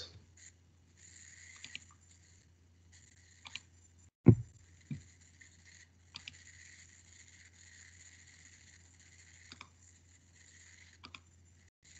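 Faint steady hum and hiss of the microphone and room, broken by scattered short clicks and knocks, the sharpest about four seconds in.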